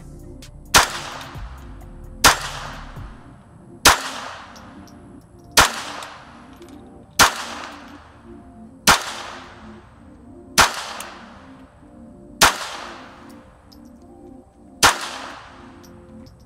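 A .22 LR pistol fired nine times in slow, aimed single shots, each a sharp crack with a short ringing tail. The shots come about every second and a half to two seconds, spacing out a little near the end.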